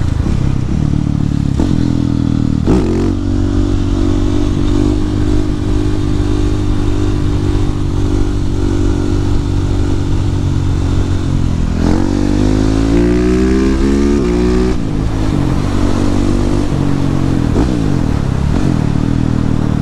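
Husqvarna 701 supermoto's single-cylinder engine under way, heard from inside the rider's helmet with wind noise. The engine note drops about three seconds in and holds steady. Past the middle the revs climb for about three seconds, then fall back, as with a gear change.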